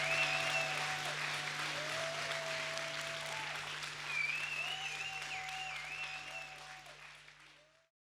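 Audience applauding, with a few held cheering voices and a wavering whistle over the clapping, fading out near the end.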